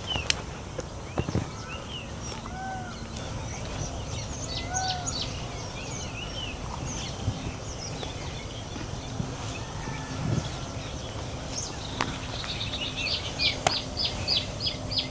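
A chorus of several wild birds calling at a lakeshore: many short high chirps and whistles throughout, two arching, down-curving calls in the first few seconds, and a quick run of sharp high notes, about four or five a second, near the end, over a steady low background rumble.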